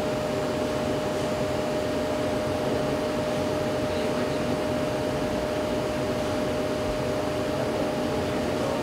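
Steady machine hum and hiss with one constant high tone from a laser denim-finishing machine running while its beam traces over the fabric to burn a fade pattern.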